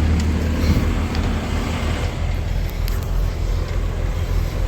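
Steady low engine rumble with a light clicking over it, as of a diesel semi-truck idling.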